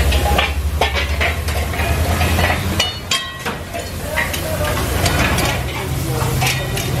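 Food sizzling in iron karahi woks over wood fires, with metal tongs clicking and scraping against the pans as the cooks stir, and a short metallic ring about three seconds in. A low steady rumble runs under it for the first few seconds.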